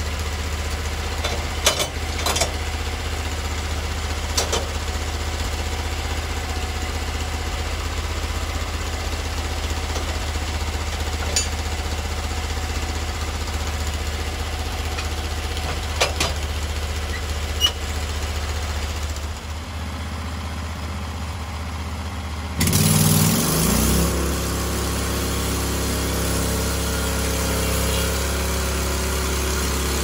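Norwood HD36 portable bandsaw mill's gas engine running steadily at idle, with a few sharp knocks as the log is set on the bed. About 23 seconds in the engine revs up, the pitch rising, and it runs on at speed as the bandsaw cuts into the log.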